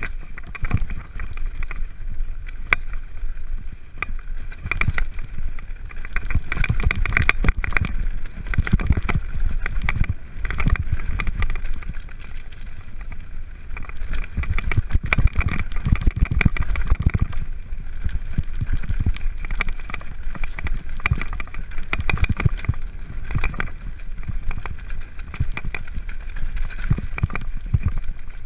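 Mountain bike clattering down a rocky trail: tyres crunching over loose stones and the frame, chain and components rattling with every bump, over a heavy low rumble. It gets louder and rougher over the rougher stretches.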